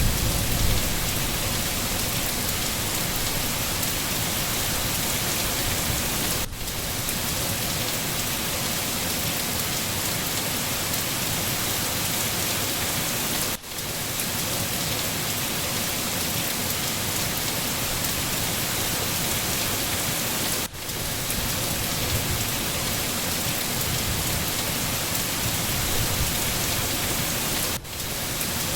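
Steady rain falling in a forest, an even hiss with a low thunder rumble fading out in the first second. The level drops briefly about every seven seconds.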